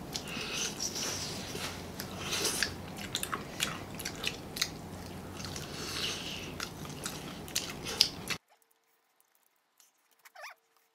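Close-up chewing and biting of crispy fried chicken, with crunching. The sound cuts out abruptly about eight seconds in to near silence.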